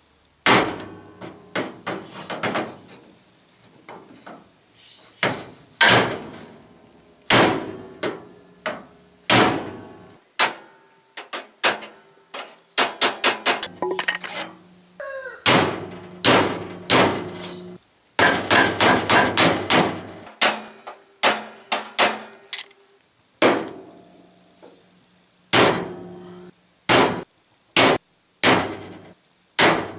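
Hammer blows on a wooden stick held against a 1966 Chevy Biscayne's bent grille bars, driving the riveted-in grille straight in place. The strikes come irregularly, some singly and some in quick runs of several. Many of them leave the grille ringing with a short note.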